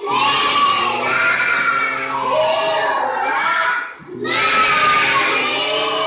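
A group of children reciting the Quran aloud in unison, loud and energetic, in long drawn-out chanted phrases. There is a short break for breath about four seconds in.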